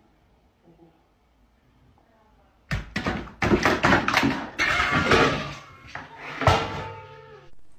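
Two long-haired cats scuffling, with a run of harsh hisses and sharp knocks starting about three seconds in after a quiet start, and a short falling cry near the end.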